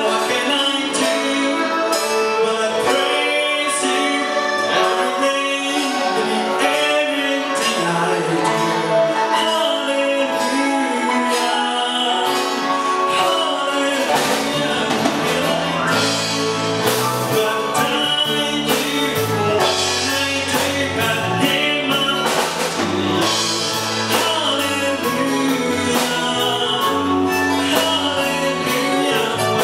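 A man singing a song through a microphone and PA, with instrumental accompaniment; a bass line and drums come in about halfway through.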